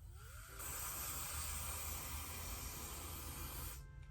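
Aerosol hair spray can hissing in one continuous spray of about three seconds, starting about half a second in and cutting off sharply near the end.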